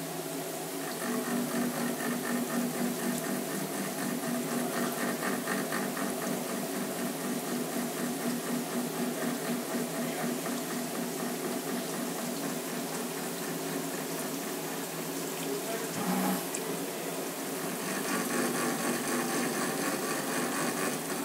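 Haas VF-1 CNC vertical mill slotting a steel castle nut with a woodruff cutter turning at 250 rpm: a steady cutting noise with a fine even pulsing. It grows louder about a second in, eases briefly with a short knock about 16 seconds in, then picks up again.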